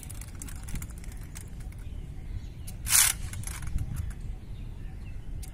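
A squad's rifle drill: about halfway through, one short, sharp crash of many rifles and hands striking together, a little ragged, over a low steady rumble and faint scattered clicks of rifle handling.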